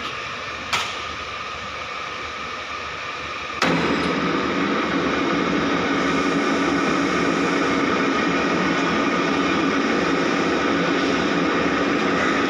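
Wanderer thread milling machine running steadily. There is a sharp click a little under a second in, and a knock at about three and a half seconds, after which it runs louder.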